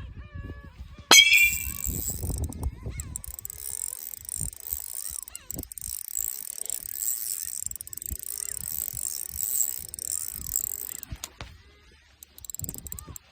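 Spinning reel being cranked to retrieve line: a sharp click about a second in, then a steady high ticking whir that stops near the end. Faint bird calls sound in the background.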